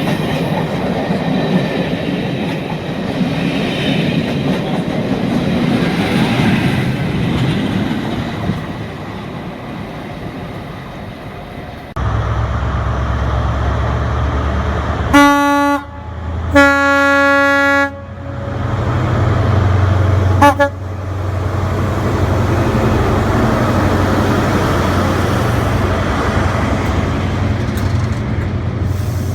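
Train horn: two loud blasts, the second longer, then a short toot a few seconds later, over a low steady drone from the train. Before an abrupt change about twelve seconds in, a steady rumble of a train running.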